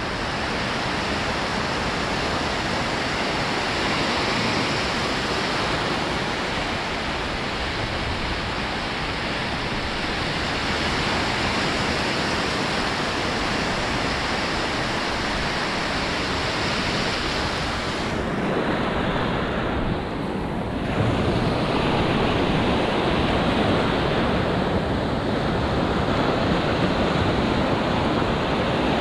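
Surf breaking and washing up a sandy beach: a steady rush of waves that swells louder about two-thirds of the way through, with wind rumbling on the microphone.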